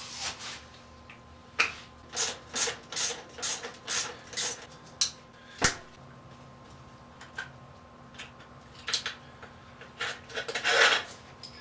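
A hand tool scraping and rubbing at a dirt bike's handlebar fittings in short strokes, about two a second for a few seconds, then a single sharp knock, a few scattered scrapes and one longer scrape near the end.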